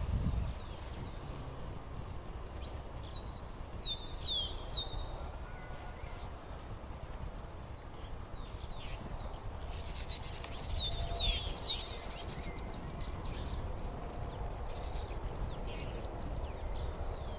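Wild songbirds singing: scattered high chirps and two bouts of quick, repeated down-slurred whistles, about four seconds in and again about ten seconds in, over a steady low outdoor rumble.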